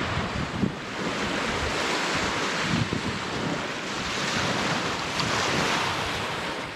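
Waves of the Gulf of Finland washing in steadily, with wind buffeting the microphone.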